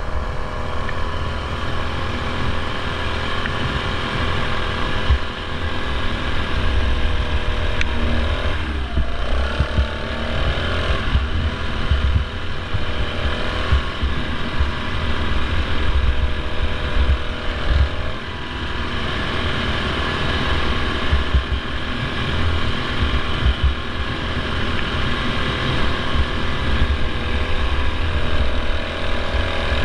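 Racing ride-on mower's engine running hard at track speed, heard from a camera mounted on the mower, with heavy low buffeting on the microphone. About eight to ten seconds in, the engine note wavers and dips briefly, as if easing off the throttle, then picks up again.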